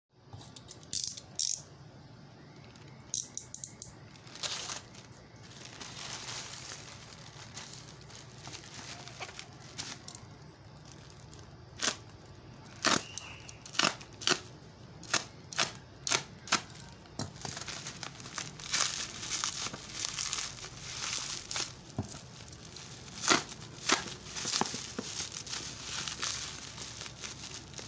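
Plastic courier bag and bubble wrap crinkling, rustling and tearing as a parcel is unwrapped by hand, with a series of sharp snaps and clicks. About two-thirds of the way in, the crackly rustling becomes denser and louder.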